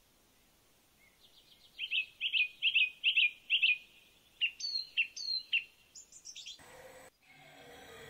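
A songbird singing: a quick run of sharp, repeated chirps followed by a few whistled notes that sweep up and down. Near the end the sound cuts abruptly to a steady hiss that begins to swell.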